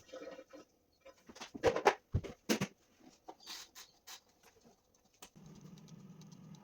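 Light kitchen handling: a scattering of short knocks and taps, then a faint low steady hum begins about five seconds in.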